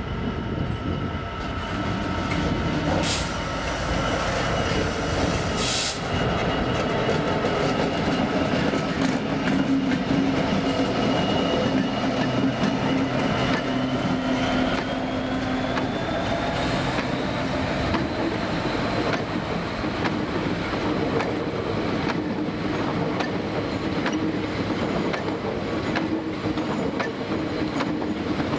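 EWS Class 66 diesel locomotive's two-stroke V12 engine running as it passes close by hauling empty stone wagons, loudest about halfway through. A wheel squeal rises in pitch around the middle, and then the empty wagons' wheels give a steady clickety-clack over the rail joints as they roll past.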